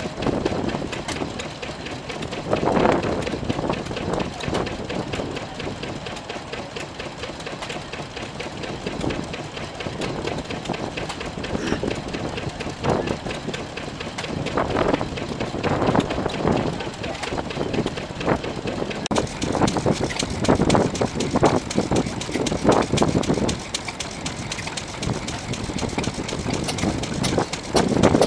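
Vintage stationary engines running, a rapid, even beat of firing strokes and mechanical clatter.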